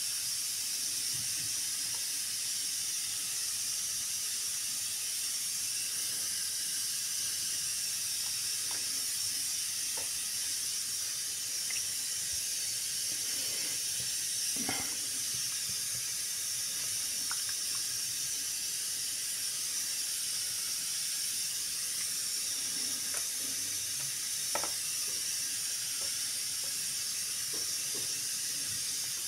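Steady high hiss, with a few faint taps and soft knocks as raw chicken pieces are handled and laid on a metal baking tray.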